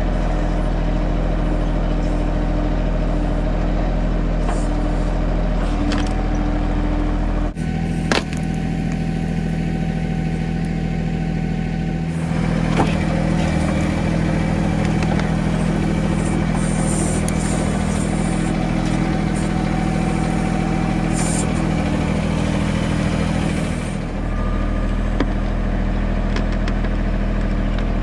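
Mahindra 1626 compact tractor's three-cylinder diesel engine running steadily while it powers the backhoe digging out stumps. Its tone changes abruptly a few times.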